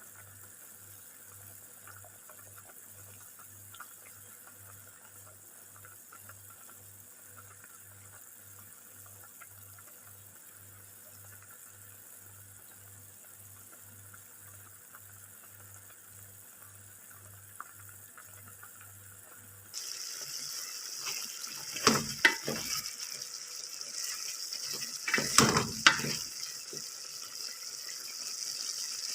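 Chicken feet in soy and oyster sauce boiling in a pot, to be cooked through. For most of the time there is only a faint steady background with a low pulsing hum. About twenty seconds in it changes suddenly to a louder hiss of bubbling liquid, with a few knocks like a utensil stirring against the pot.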